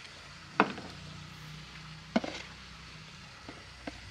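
Sharp clicks and snaps of ripe tomatoes being picked off the plants by hand: two louder ones about a second and a half apart, then two faint ticks near the end.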